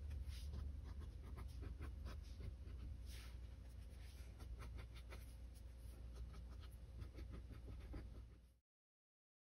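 Faint low hum with scattered light clicks and ticks, cutting off suddenly to silence near the end.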